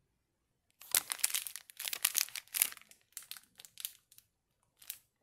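Thin plastic piping bag of ketchup crinkling as it is handled and squeezed. A dense run of crinkles starts about a second in and lasts about two seconds, then a few short crinkles follow at intervals.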